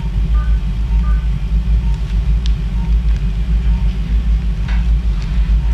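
Steady low rumble of operating-room equipment, with a few faint short electronic beeps about half a second and a second in.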